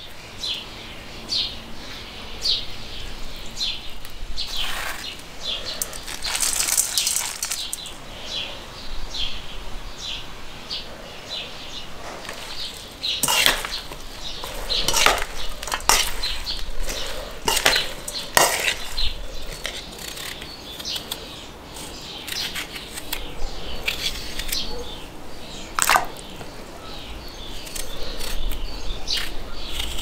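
Salad being tossed in a stainless steel bowl: leaves and cut vegetables rustle, and a metal utensil now and then clinks and scrapes sharply against the bowl.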